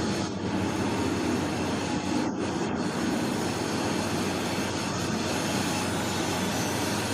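K-700 tractor's diesel engine running steadily, a low, even drone with no change in pitch.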